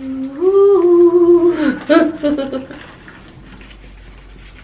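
A woman's voice humming one long note that steps up in pitch, holds, and falls away after a little under two seconds, followed by a short sharp click and a few fainter mouth sounds.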